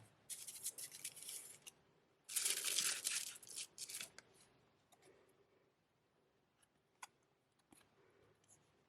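Packaging of a CD set being torn open in two spells of tearing, each about a second and a half long, the second louder, followed by a few light clicks of handling.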